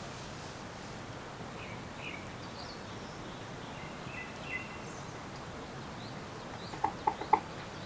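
Forest birds chirping faintly and intermittently over a steady background hiss. Near the end comes a quick run of four short, loud, clipped notes, the loudest sounds here.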